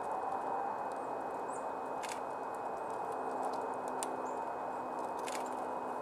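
A red-bellied woodpecker pecking at a wooden stump feeder: a few sharp, irregular taps over a steady outdoor background rush.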